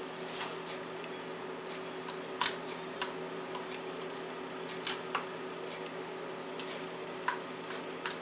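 Crumb topping being sprinkled by hand into aluminium foil pie pans: light, irregular clicks and crinkles of the foil, over a steady low hum.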